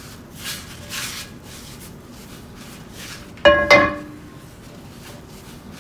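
Paper towel rubbing shortening over a cast iron skillet, heard as soft scrubbing strokes in the first second or so. About three and a half seconds in, a brief burst of pitched background music, two short notes, is the loudest sound.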